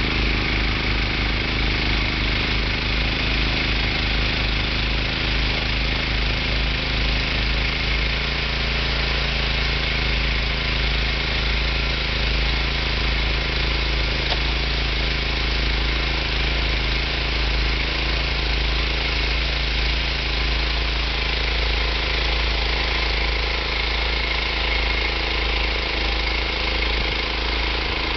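ZLST 1101 Q snow thrower's engine running steadily under load while it clears snow and throws it out of the chute.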